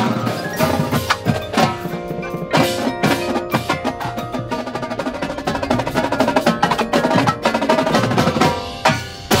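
Indoor percussion ensemble playing: vibraphone and marimba mallet notes over snare and tenor drums and cymbals, in a dense, fast rhythm that builds to a loud accented hit near the end.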